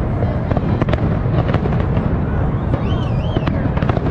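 Dense volley of aerial fireworks: shells bursting one over another in a continuous low rumble, thick with sharp bangs and crackles. A wavering whistle sounds about three seconds in.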